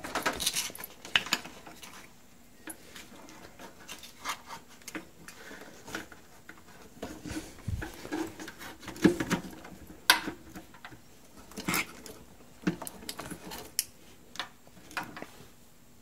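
Irregular clicks, taps and light knocks of hands handling a refrigerator's plastic water inlet valve, its tubing and its metal mounting bracket, with a few sharper knocks past the middle.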